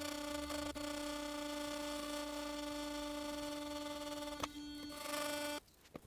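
Sonic electric toothbrush running with a steady hum, its bristles pressed against the edge of an iPhone XR. It cuts off suddenly about five and a half seconds in.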